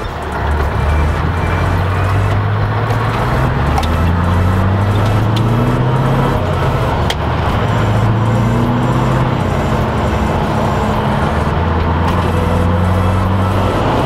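Scania V8 truck engine with an open exhaust, heard from the cab while driving, pulling hard: its pitch climbs and drops back several times as it changes gear.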